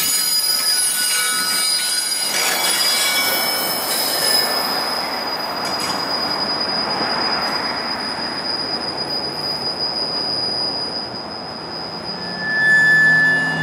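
Commuter train passenger coaches rolling past, their steel wheels squealing on the rail over a steady rumble. One high whine holds for most of the time, and a louder, lower squeal comes in near the end.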